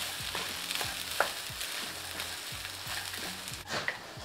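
Wooden spatula stirring and scraping fried rice in a wok over a gas burner on medium-low heat. A steady light sizzle runs under scattered short clicks of the spatula against the pan, one sharper about a second in.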